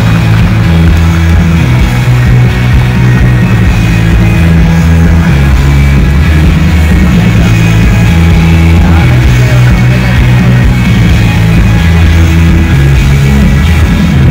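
Loud rock music with a bass line that steps from note to note.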